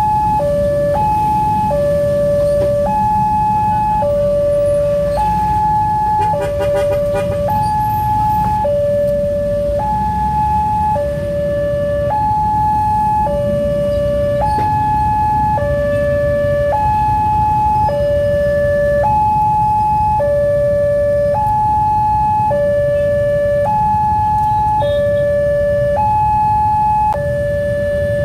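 Railway level-crossing warning alarm sounding continuously, an electronic two-tone signal switching between a lower and a higher tone about once a second, over a steady low traffic rumble. A short rattling clatter cuts in about six seconds in.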